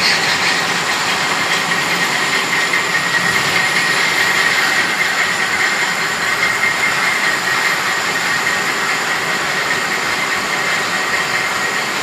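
Textile mill machinery running, a loud continuous mechanical din with a steady high-pitched whine running through it.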